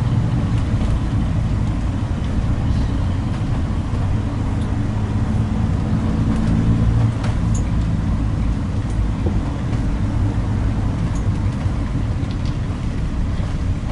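Engine hum and road noise of a moving car heard from inside its cabin: a steady low rumble with a faint engine tone that drifts up and down a little.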